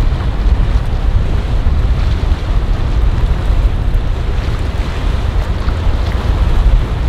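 Wind buffeting the microphone in a loud, steady, gusty rumble, over the rush of choppy water and a passing motor yacht's bow wave and wake.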